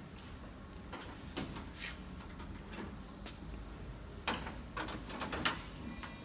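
Door latches on an oil-free screw air compressor's sheet-metal access panel being worked open: scattered metallic clicks and clacks, with a cluster of them from about four seconds in, over a low steady hum.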